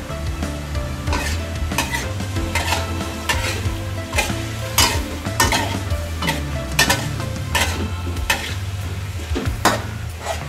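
Metal spatula scraping and tossing pineapple and pork around a steel wok in steady strokes, about one every three-quarters of a second, with the food sizzling underneath.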